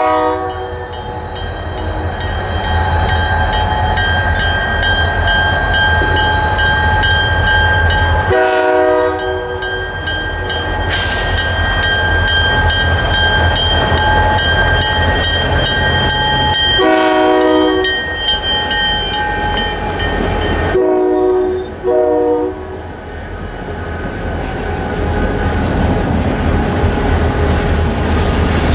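Diesel freight locomotive's air horn sounding several blasts over the low rumble of its diesel engines: one ending at the start, longer ones about 8 and 17 seconds in, and two short ones around 21 to 22 seconds. After that, covered hopper cars roll past with their wheels running over the rails.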